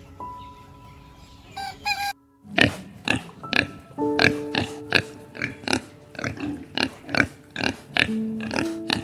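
Soft background music with steady tones, then after a brief break about two seconds in, a rapid run of short animal calls or grunts, about two or three a second, over the music.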